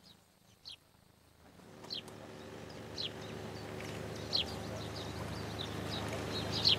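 Short, high, downward-sliding bird chirps repeating every half second to a second over a low steady hum that fades in about a second and a half in and slowly grows louder.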